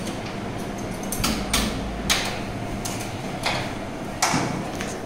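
Sharp clicks and knocks, about five of them, from the parts of a cinema film projector being handled, over a steady low hum.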